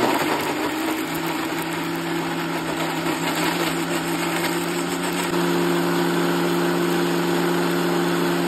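Electric mixer grinder running at speed, its steel jar grinding guava, herbs, green chilli and ice cubes into a wet chutney: a steady motor hum over dense grinding noise. The pitch steps up slightly about five seconds in.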